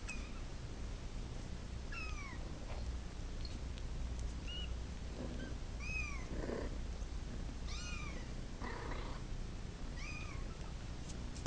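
A kitten mewing for its mother: about six short, high-pitched calls, each rising then falling, roughly every two seconds, over a low steady hum and a few soft rustles.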